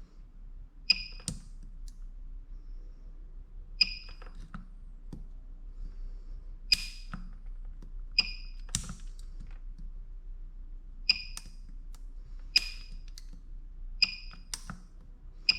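Spot welds made with a handheld spot-welding pen on a PCB spot welder, joining 0.15 mm nickel strip to 18650 cells. Each weld is a short high tone and a sharp snap, repeated every one to three seconds.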